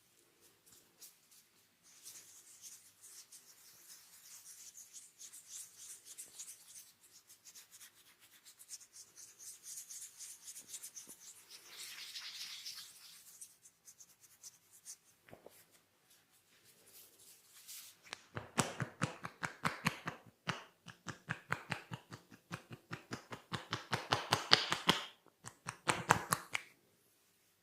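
Hands rubbing and scratching through hair during a head massage, then a fast run of sharp hand taps that stops suddenly near the end.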